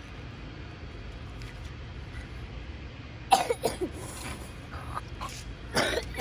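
A few short coughs, a pair about three seconds in and another near the end, over a steady low rumble.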